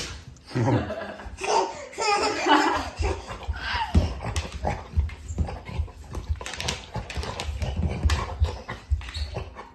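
A chocolate Labrador retriever gives one sharp, loud sneeze, followed by a person laughing for a couple of seconds. After that come soft low thumps and rustling.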